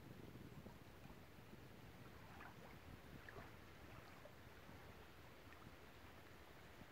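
Near silence: a faint low rumble with a few faint, brief high chirps scattered through it.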